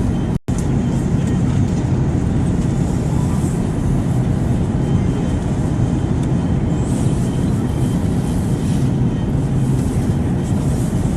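Steady airplane noise: a loud low rumble with a hiss above it. It cuts out for an instant about half a second in.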